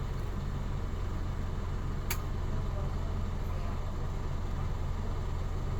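Hyundai All New Mighty truck's diesel engine idling steadily after a remote start, with a single sharp click about two seconds in.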